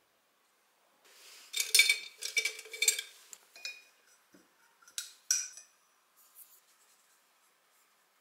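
Paintbrush swirled in a glass jar of rinse water, clinking and rattling against the glass with a ringing tone for about two seconds, then two more sharp clinks about five seconds in.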